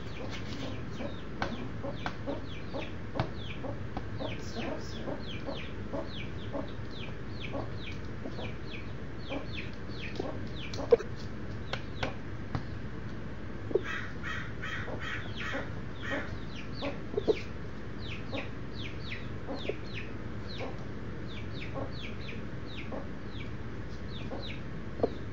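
Baby chicks peeping over and over, short high falling chirps several times a second. A few sharp taps stand out, a Giant Cochin rooster's beak pecking food off the wooden floor.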